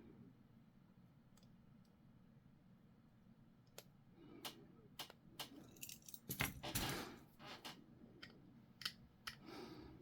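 Small plastic model-kit parts being handled and pressed together: after about four seconds of near quiet, a run of sharp clicks and light handling noise, with a longer rustle or scrape a little past the middle and a few more clicks near the end.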